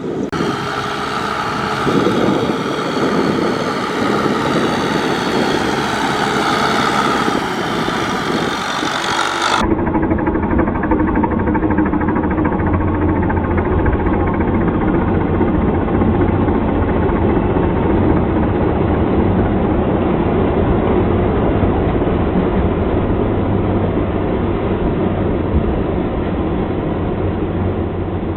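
Tractor engine running steadily while ploughing in mud. About ten seconds in, the sound changes abruptly to a duller, steadier engine hum.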